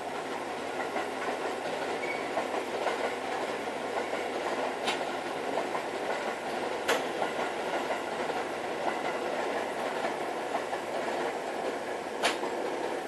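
A train passing over a level crossing, its wheels rumbling and clacking steadily over the rail joints, with a few sharper clacks.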